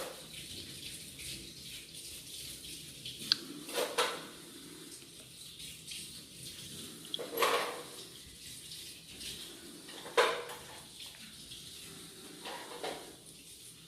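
Smartphones being locked: a short, sharp lock click every two to three seconds over a steady hiss.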